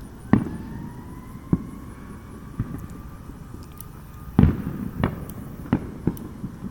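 Fireworks going off: a string of about seven sharp bangs, the loudest about four and a half seconds in. A long, slowly rising whistling tone runs behind the first few bangs.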